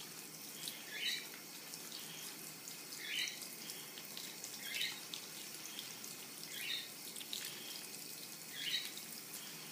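Cold water running from a bathroom tap into the sink as a natural-bristle makeup brush is rinsed under it and worked against a wet rubber-gloved palm. A short, higher-pitched sound comes about every two seconds.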